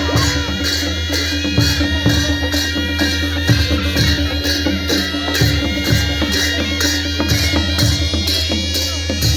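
Loud music with a steady, evenly repeating drum beat over a held drone and heavy bass.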